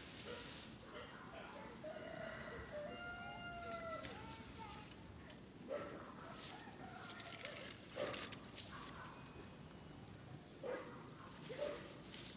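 Faint rustling and crackling of leaves and stems as someone pushes through dense undergrowth, with a few sharp snaps in the second half. A drawn-out animal call sounds in the background for about a second and a half, about two seconds in.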